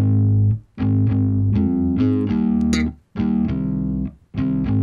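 Warm Omnisphere synth chord patch playing a progression of held chords built on root and thirds, in four sustained stretches with short breaks between them, with a playful pitch bend partway through.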